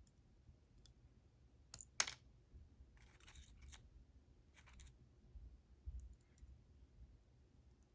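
Small metal lock parts being handled while key pins are loaded into a padlock core: a couple of sharp clicks about two seconds in, then faint scraping and rustling.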